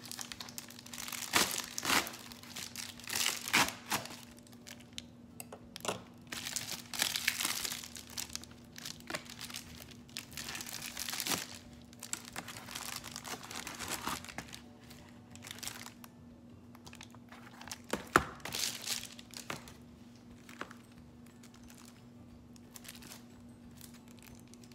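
Plastic bubble mailer crinkling and rustling as it is cut open with scissors and a plastic-wrapped tablet case is pulled out, with a few sharp snips. The rustling dies down after about twenty seconds.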